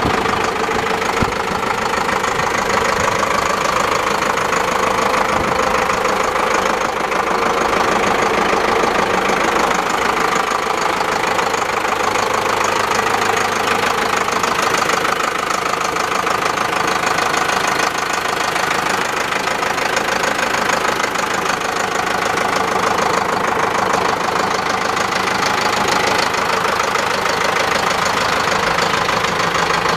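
Zetor tractor's diesel engine idling steadily.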